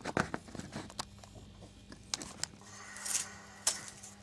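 A few clicks and knocks of handling in the first second, then masking tape being peeled and torn off a resin-cast knife handle blank, with short rasping tears about three and three and a half seconds in.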